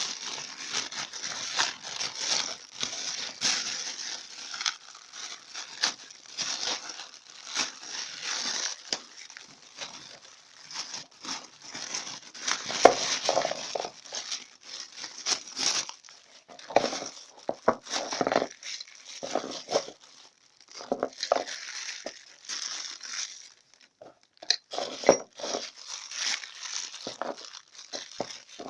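Plastic packaging crinkling and rustling with many small crackles as a new toilet cistern fittings kit is handled and unwrapped.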